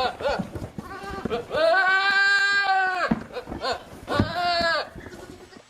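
Animal bleating: a short wavering call at the start, a long drawn-out bleat from about one and a half seconds in lasting over a second, and a shorter bleat a little after four seconds.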